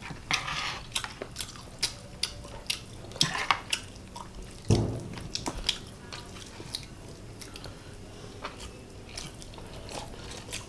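Close eating sounds: chewing and lip smacks, with a string of short wet clicks, as two people eat chicken and rice with their fingers. One dull thump about four and a half seconds in.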